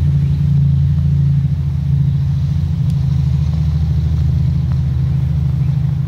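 An engine running steadily: a loud, low, even drone with a fast pulsing beat.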